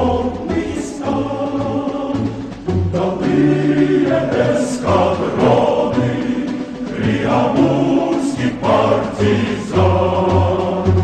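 Music: a choir singing in full harmony over a strong low bass part.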